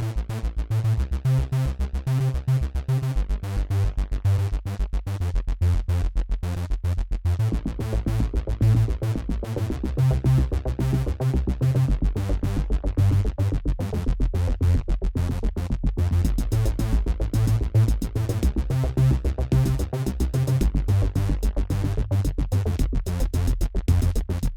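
Electronic outro music with a steady drum-machine beat, heavy bass and synthesizer.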